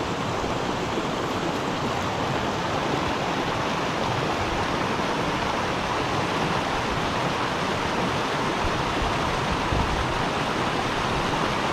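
Mountain stream water running over a small rocky cascade into a pool, a steady rush of water.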